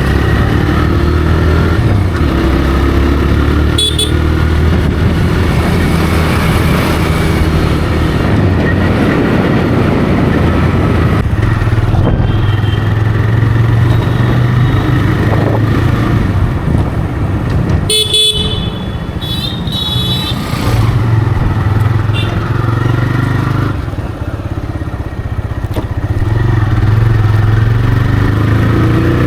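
TVS Raider 125's single-cylinder engine running through its stock exhaust on the move, its note shifting with the throttle. A vehicle horn honks twice, briefly, a little past the middle.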